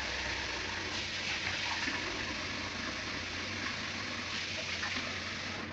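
Water running steadily from a kitchen tap, stopping at the very end.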